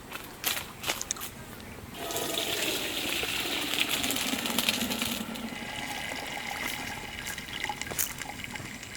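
A few light clicks, then about two seconds in water starts pouring or rushing, strongest for the next three seconds and running on more quietly after that.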